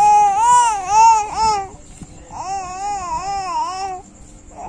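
A baby babbling in two long, high, sing-song calls whose pitch wavers up and down, with a short pause between them.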